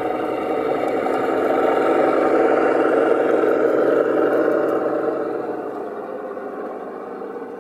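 O gauge model Class 53 diesel locomotive passing on garden track: the sound-fitted model's diesel engine running steadily, with wheel noise on the rails. It grows a little louder for the first three seconds and then fades as it moves away.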